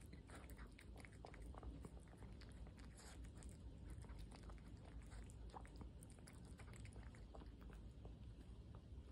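A cat eating wet cat food from a plate: quiet chewing and licking, heard as many small irregular wet clicks.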